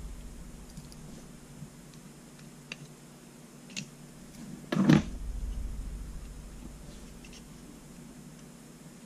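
Handling noise of a handheld radio's metal chassis and circuit board being turned over in the hands with a small screwdriver: a few light clicks and taps, and one louder knock about five seconds in.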